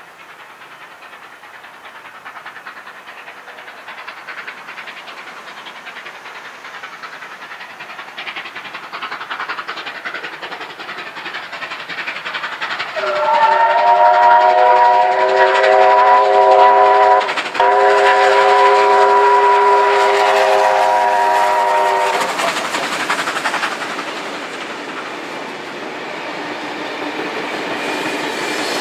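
Steam locomotive 3801, a C38 class Pacific hauling a passenger train, approaching and growing steadily louder. About halfway through it sounds two long blasts on its multi-tone whistle, the second straight after the first. The train then rolls past.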